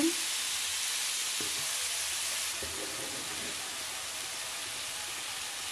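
Diced tomatoes and spice paste sizzling steadily in hot oil in a nonstick frying pan on medium heat, a wooden spoon stirring through them.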